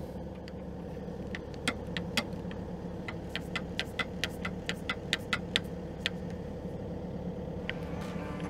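An engine idling steadily, with a run of sharp metallic clicks, about three or four a second, from a ratchet wrench tightening the excavator's track adjuster grease valve. One more click comes near the end.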